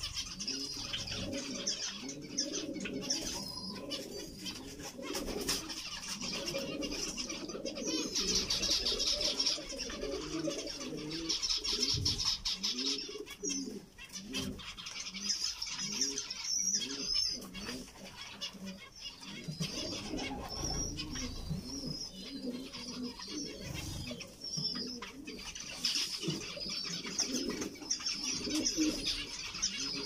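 Flock of zebra finches calling, with stretches of rapid high-pitched chattering, over a low repeated cooing from another bird.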